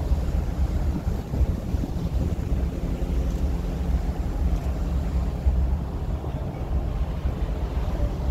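Wind buffeting the microphone on the deck of the moving Staten Island Ferry, a steady low rumble mixed with the ferry's running noise.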